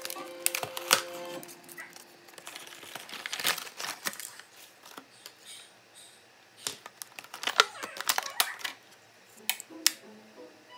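Packaging being handled: a paperboard box flap opened and a clear plastic tray crinkling, with scattered small clicks and taps as a small plastic gadget and its USB cable are lifted out. Faint background music fades out about a second in.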